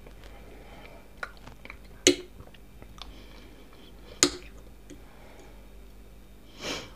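Soft chewing of mashed potato and chicken in cream sauce, with two sharp clicks about two and four seconds in as a metal fork strikes the glass plate.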